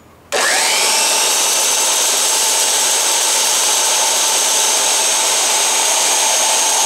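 A Bosch 1273DVS belt sander is switched on about a third of a second in, its whine rising as it spins up and then holding steady. A steel block plane blade in a sharpening jig is ground against the moving belt, throwing sparks, to take out a chipped corner of its edge.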